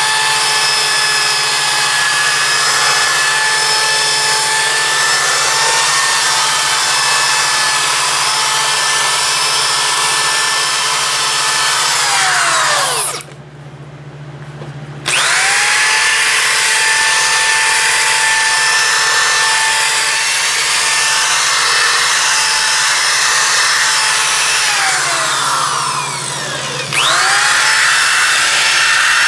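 Power drill spinning an abrasive disc against the metal lathe bed to clean and smooth its surface: a steady motor whine with a scrubbing noise. The drill winds down and stops about halfway through, restarts about two seconds later with a rising whine, then winds down and starts up again near the end.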